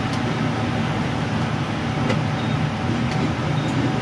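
Steady low hum of an idling semi-truck diesel engine, with a few light clicks as the fuel nozzle is handled at the truck's tank.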